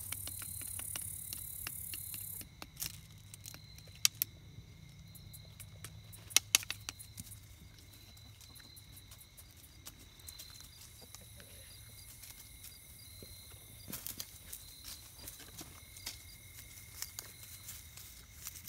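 Quiet backyard ambience: a faint steady high drone runs throughout, with scattered sharp clicks and rustles. A low hum is heard for the first couple of seconds.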